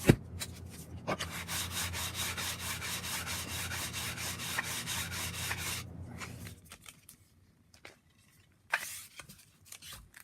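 A sharp knock, then about five seconds of steady gritty scraping as a planer knife held in a Deulen sharpening jig is stroked back and forth over sandpaper. A few light clicks follow near the end.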